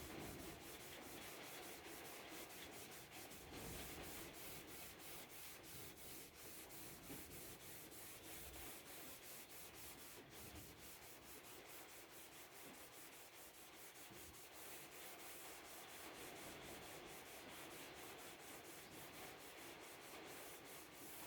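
Faint, quick, even rubbing strokes on the wooden veneer of a speaker cabinet, as when working it by hand with a cloth or abrasive.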